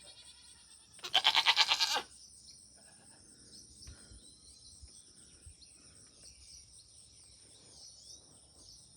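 A buck goat bleats once, a loud, rapidly wavering bleat about a second long, starting about a second in. A steady high insect drone and faint bird chirps go on underneath.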